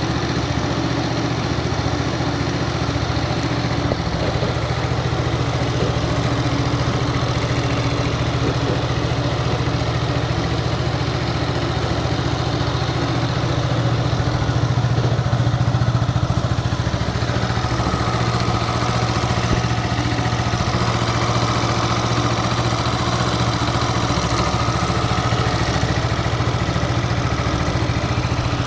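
A 2010 Yamaha New Cygnus-X scooter's single-cylinder four-stroke engine idles steadily, with a faint higher steady tone joining over the latter part. The owner says the engine has sounded harsh and noisy, not full and deep, since about 600 km, and is asking what the abnormal noise is.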